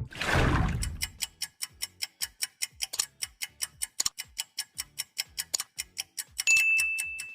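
Edited transition sound effect: a falling whoosh, then rapid clock-like ticking at about four to five ticks a second, with a bright held ding about six and a half seconds in.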